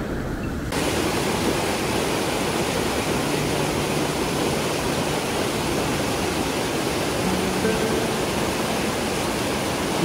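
Alibek waterfall: a steady, dense rush of falling water that starts abruptly about a second in and holds an even level.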